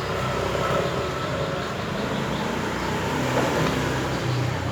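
Road traffic: a steady rush of vehicle noise with a low engine hum, swelling a little in the middle.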